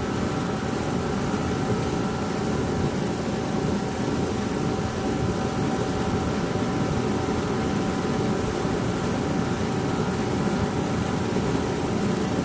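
A 2005 Rheem 2.5-ton central air conditioner running steadily after start-up, with a steady hum under the rush of the condenser fan. It is cooling normally.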